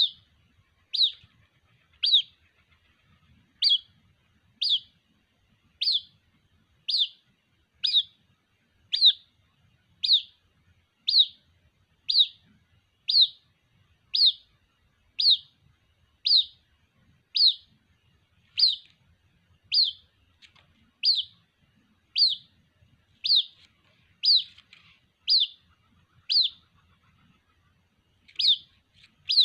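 White-breasted waterhen chick calling for its parent: a short, high note falling in pitch, repeated about once a second, with a brief pause near the end.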